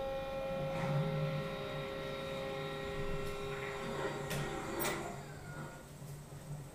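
Monster truck video game audio through a TV's speakers: a steady electronic hum that fades toward the end, with a couple of faint clicks.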